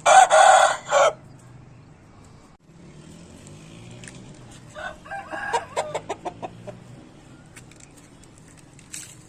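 Yellow Aseel rooster crowing loudly, one short crow that ends about a second in. A few seconds later comes a quickening run of clucks.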